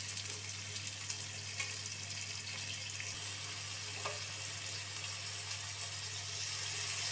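Chicken mince frying in oil with onion and tomato in a nonstick wok: a steady sizzle, with a few light scrapes and clicks from the spatula stirring it. A steady low hum runs underneath.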